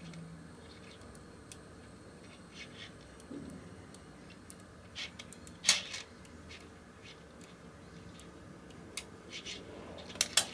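Small magnetic balls clicking as they snap together while a strand of them is wound into a ring by hand: scattered sharp clicks, the loudest about halfway through and two quick ones near the end.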